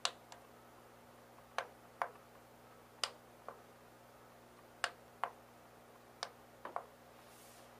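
Buttons on a Behmor 1600 Plus coffee roaster's control-panel keypad being pressed one after another as its roast profiles are tested: short, sharp clicks, about a dozen in all, several in close pairs.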